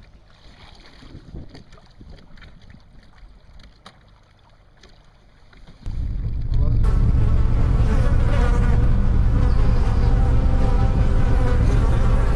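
Quiet shoreline sounds with a few small knocks. About six seconds in, a boat's engine running under way cuts in suddenly, a loud, steady low hum heard from inside the boat's cabin.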